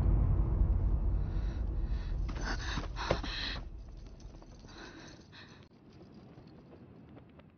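A deep, low drum-like boom from the soundtrack dying away slowly, with a few short breathy noises in the middle before everything fades out.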